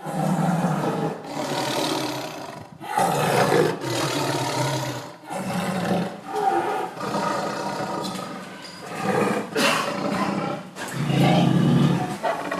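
Angry tiger growling: a run of about seven rough growls, each a second or two long, with brief pauses between.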